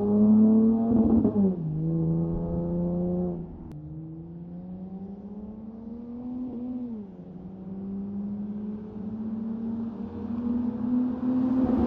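Car engine pulling under acceleration, its pitch climbing and then dropping at each gear shift, about a second and a half in and again around seven seconds in.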